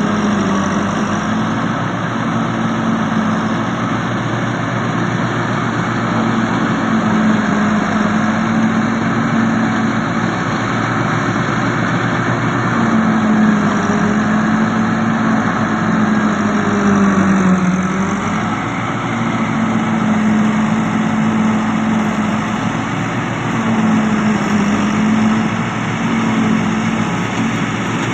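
Tractor diesel engine running hard while driving a tractor-mounted silage chopper that cuts maize stalks and blows the chopped forage out of its spout. The engine note sags and recovers now and then as it takes the load of the stalks.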